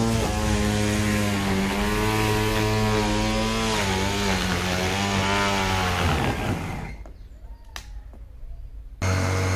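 Parkside 20 V cordless lawnmower cutting tall grass: a steady motor-and-blade hum whose pitch dips and recovers as the grass loads it. About six seconds in it winds down and stops, a single click follows, and near the end the hum comes back suddenly at full speed.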